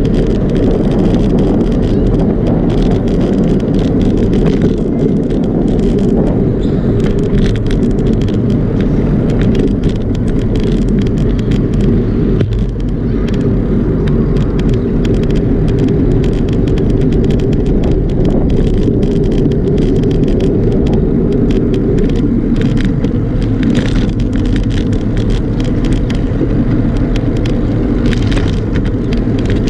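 Steady wind rumble on the microphone of a bicycle-mounted action camera while riding along a paved path, mixed with tyre and road noise and many small clicks and rattles from bumps.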